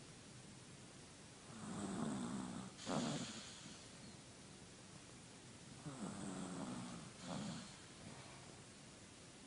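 Chihuahua snoring in its sleep: two snoring breaths about four seconds apart, each a rattling drawn-out breath ending in a short, sharper puff.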